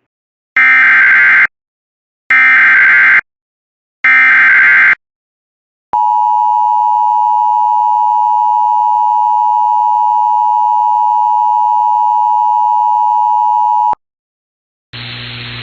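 Emergency Alert System signal for a severe thunderstorm warning: three short buzzing SAME header data bursts, each about a second long, then the steady two-tone EAS attention signal for about eight seconds. Near the end, after a short gap, a hiss with a low hum begins.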